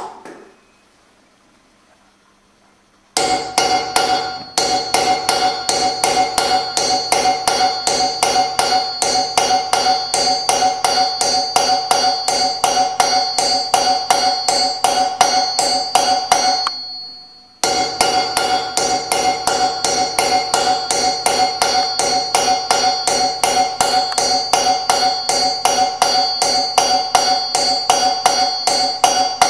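Rapid, even hammer blows on a hand-held punch, raising the teeth one by one on a steel rasp cylinder clamped in a vise, about four blows a second, the steel ringing with each blow. The blows start about three seconds in and stop for about a second past the middle.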